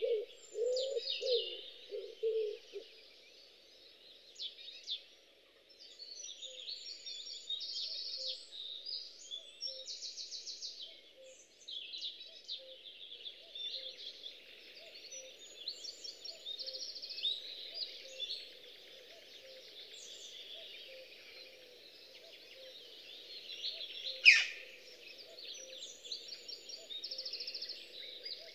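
Woodland birds singing and chirping, with several short trills, and low repeated cooing notes in the first few seconds. A single sharp click about 24 seconds in.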